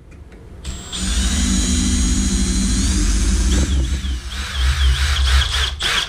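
Cordless drill with a 2.5 mm bit drilling out the rivet heads on a seatbelt buckle receiver. The motor starts under a second in with a steady whine, rises a little in pitch near the middle, then wavers as the bit bites into the rivet, and stops just before the end.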